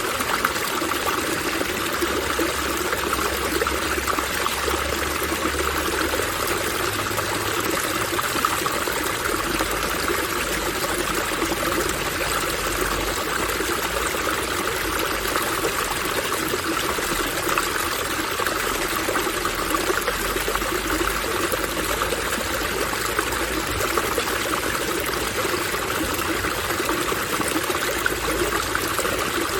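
Water running and splashing steadily in an outdoor park water fixture, an even rushing, trickling sound with a low rumble that comes and goes underneath.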